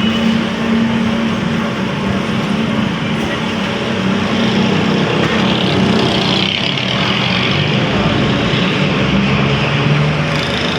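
Workshop machine running steadily: a low, even hum with a dense noise over it, the hum dropping slightly in pitch near the end.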